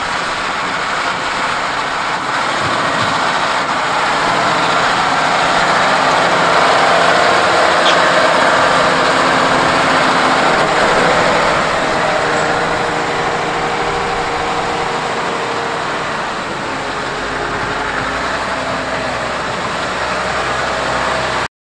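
2014 John Deere 7290R's six-cylinder diesel engine running hard under load as the tractor drags a weight-transfer pulling sled. The sound swells to its loudest about halfway through, eases a little, then cuts off abruptly near the end.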